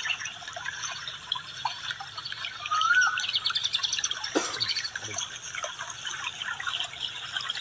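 Many wild birds chirping and twittering, with a short rising-and-falling whistled call about three seconds in and a quick falling call about four and a half seconds in.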